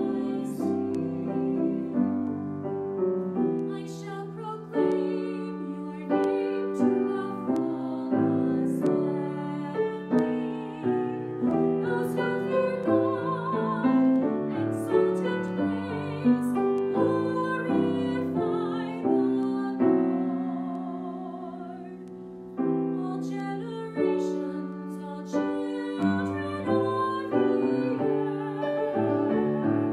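Grand piano accompanying a woman singing solo in a classical style with vibrato.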